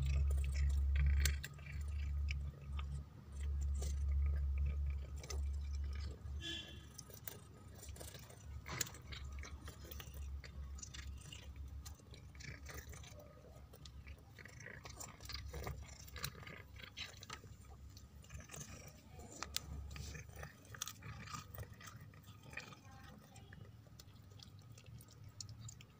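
A cat chewing and tearing at scraps of meat: an irregular run of short wet clicks and crunches. A low rumble runs under the first six seconds or so.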